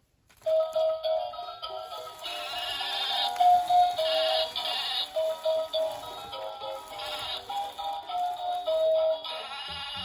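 Electronic children's tune: a simple melody of short pitched notes, starting about half a second in.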